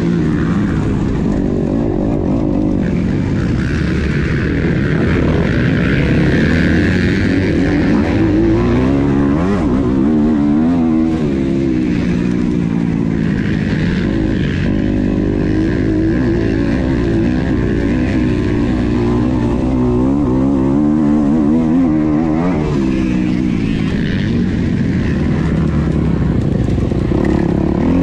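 A motocross bike's engine heard from its own onboard camera, racing hard. Its pitch rises and falls again and again as the throttle opens and closes and the gears change.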